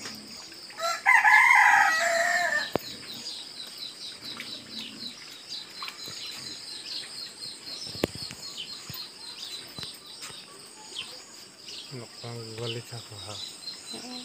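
A rooster crows once, about a second in; the call lasts nearly two seconds and is by far the loudest sound. Faint high chirping continues behind it.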